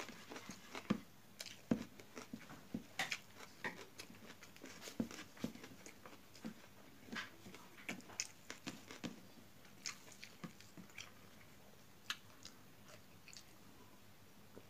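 Close-up eating sounds: chewing and wet lip-smacking over a mouthful of rice, a rapid irregular run of small mouth clicks that thins out near the end.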